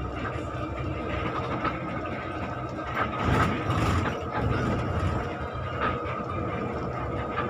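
Inside a moving coach bus: the engine runs under a steady low rumble of road noise and cabin rattle, with a thin steady whine above it. The noise swells for about a second around halfway through.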